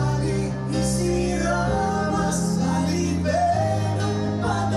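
A woman and a man singing a Greek pop song together into handheld microphones, with keyboard and bass backing.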